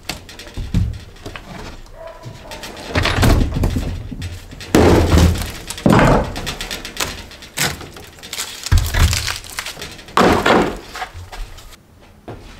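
A cut-out piece of rotted floor decking being pried and broken loose by hand: a series of about six loud cracks and thumps, one to two seconds apart, as the board splits and knocks against the framing.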